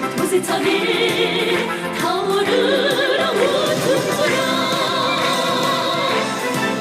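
Music: female voices singing a sustained melody with vibrato over a band accompaniment.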